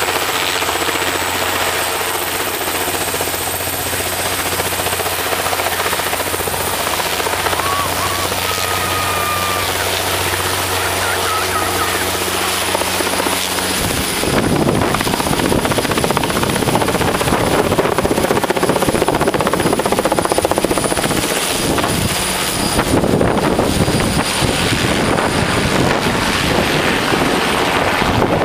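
Sikorsky S-58 helicopter running on the ground, its rotor turning steadily with a high whine. About halfway through it lifts off, and the rotor thudding gets louder and rougher as it climbs away overhead.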